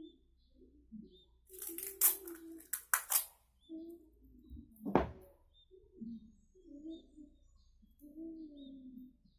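Handling clatter, with a few sharp rustles about two to three seconds in and a single sharp knock about five seconds in, over repeated low cooing calls, one roughly every second.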